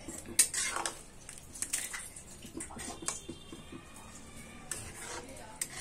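Flat metal spatula stirring thick paneer gravy in a metal kadai: soft wet squelching with a few sharp scrapes and clinks of metal on metal.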